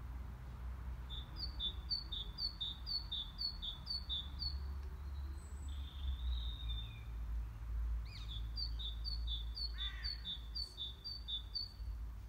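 A small songbird singing a rapid phrase of alternating high and low notes, repeated about eight times, then again after a pause, with another short call about ten seconds in. A low steady rumble lies underneath.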